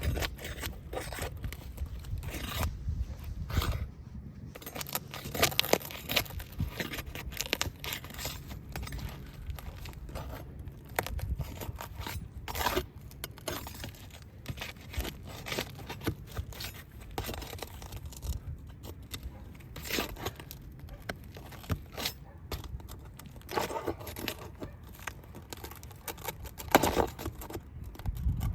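Vogeler roof shingles being pried and peeled up by hand, with irregular scraping, tearing and crackling as the tabs, stuck together and to what lies beneath, are worked apart.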